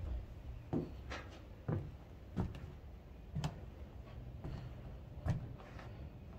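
A series of short, irregular thuds and knocks, roughly one a second, over a low steady background.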